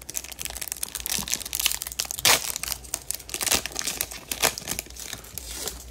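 Crinkling and tearing of a Topps Chrome baseball card pack wrapper being torn open by hand: a dense, irregular run of crackles, loudest a little past two seconds in.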